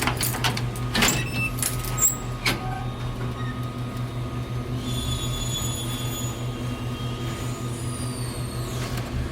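Factory machinery running with a steady low hum, several sharp clanks and knocks in the first couple of seconds, and high squealing tones that slide down in pitch near the end.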